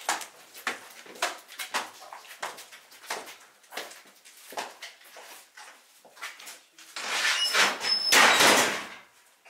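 Boots on stone stairs, about two steps a second, climbing away. About seven seconds in, a heavy door scrapes and squeaks shut over about two seconds.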